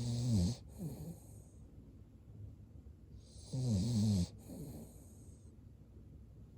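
Cavalier King Charles Spaniel snoring in its sleep: two loud snores about three and a half seconds apart, each followed by a shorter, softer breath.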